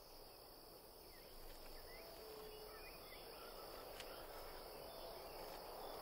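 Faint, steady chorus of crickets and insects trilling in a continuous high band over a low hiss: desert night-time ambience.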